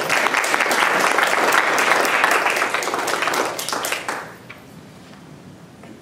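Audience applauding after a talk. The clapping is loud for about four seconds, then dies away.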